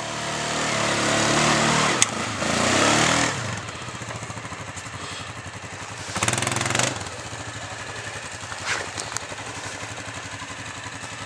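Quad bike (ATV) engine labouring up a steep hill climb, revving hard and rising for the first three seconds, with a sharp knock about two seconds in. It then drops to a lower, steady running, with a short burst of revs about six seconds in.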